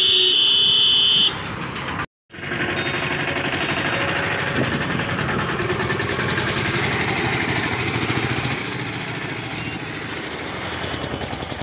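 A loud, steady high tone for about a second and a half at the start. After a brief break, a motor vehicle engine runs close by with a fast, even chatter over road noise.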